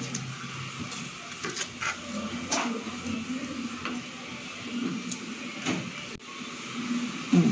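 Kitchen knife slicing through a red onion and knocking on a cutting board, a handful of irregular sharp taps over steady background hiss.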